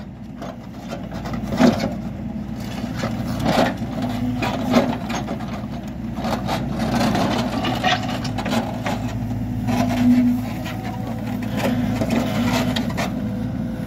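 HİDROMEK backhoe loader's diesel engine running steadily, its note swelling now and then, with repeated short knocks and clatter over it.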